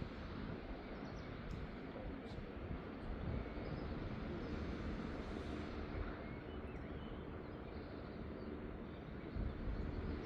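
Steady outdoor background noise, heaviest in the low end, with a few faint bird chirps.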